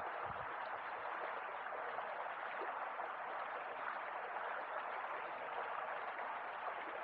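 Steady rushing of flowing stream water, with a brief low bump just after the start.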